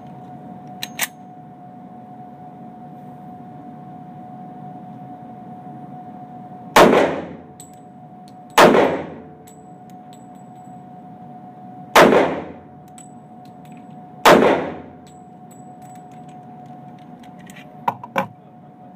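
Four pistol shots from a Kimber handgun on an indoor range, spaced about two to three seconds apart, each followed by a short echo. There are light clicks of handling near the start and near the end.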